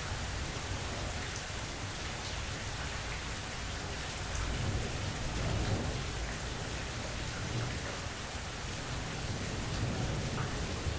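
Steady rain falling, with a low rumble of thunder swelling about halfway through.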